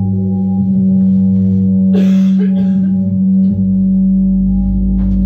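A sustained low musical drone held on one pitch, rich in overtones. A brief cloth rustle comes about two seconds in, as a shirt is pulled off, and a deeper low rumble joins the drone just past halfway.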